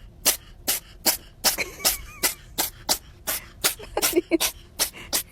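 A cat sneezing over and over in quick succession, about a dozen short sharp sneezes at roughly two to three a second.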